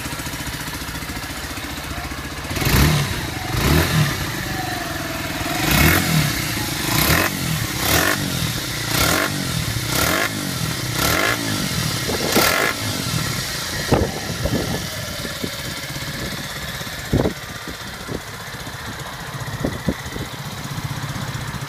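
Sinnis Scrambler 125's single-cylinder engine idling, then revved in quick throttle blips about once a second, each rev rising and falling back. After the blips it settles back to idle, with a few short sharp cracks.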